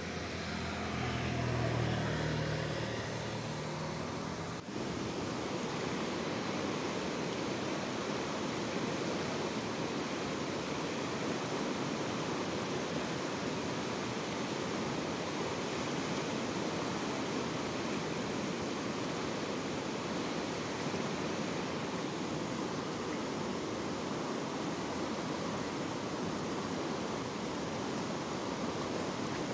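Steady rushing sound of running water. In the first few seconds a low hum rises and falls in pitch, then cuts off.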